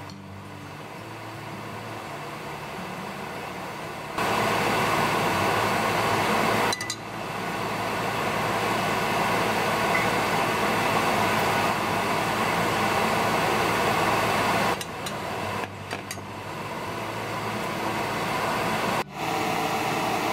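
French toast frying in oil in a nonstick pan, a steady sizzling hiss that jumps louder about four seconds in and cuts out briefly a few times.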